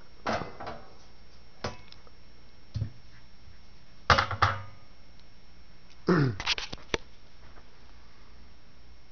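Handling knocks and scrapes as the metal case cover of a car amplifier is lifted off and set aside. There are scattered short clunks, the loudest a pair about four seconds in, then a few more with a falling scrape around six to seven seconds.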